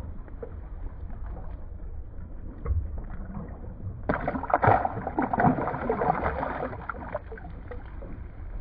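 Small boat on choppy water with wind buffeting the microphone as a steady low rumble, and a louder stretch of noise with a few sharp knocks from about four to seven seconds in.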